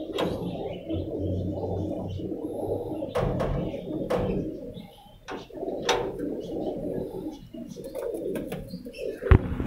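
Domestic pigeons cooing continuously, with a few sharp clicks in the middle and a sharp knock near the end, the loudest sound.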